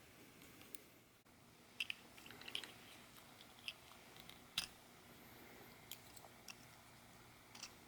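Faint, scattered small plastic clicks and taps, about seven of them, the sharpest about halfway through, as the shade-adjustment knob on an auto-darkening welding lens is handled and repositioned.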